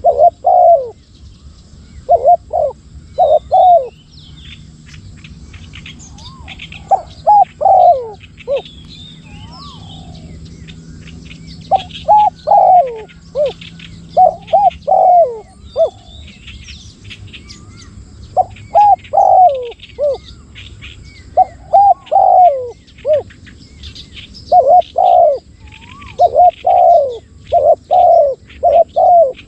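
Spotted doves cooing, loud phrases of two to four coos repeated every few seconds, with small birds chirping and trilling faintly in the background.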